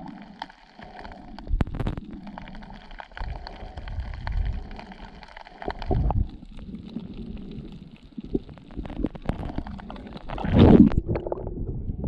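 Muffled underwater water noise picked up by a camera below the surface: a low rumbling and sloshing that swells now and then, the loudest surge near the end, with scattered small clicks.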